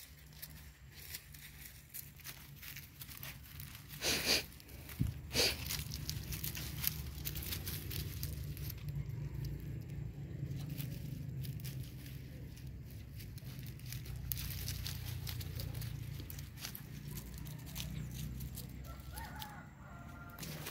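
Scattered rustling and crunching of dry leaves and twigs under feet and dogs' paws, with two louder crunches about four and five seconds in, over a low steady rumble.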